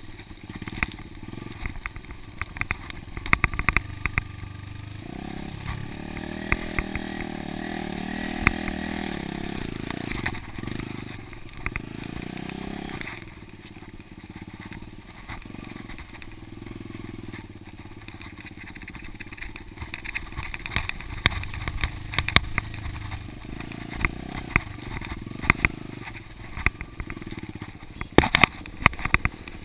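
Dirt bike engine running under changing throttle, louder for several seconds about a fifth of the way in. Frequent sharp clicks and knocks are heard over it, most densely near the end.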